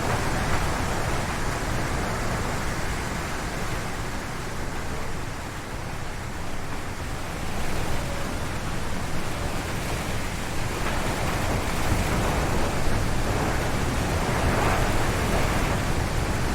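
Strong wind gusting through a forest, rushing through the trees with a heavy low rumble. It eases a little partway through, then swells again.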